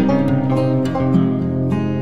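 Background music: a guitar strummed and picked, with frequent note changes.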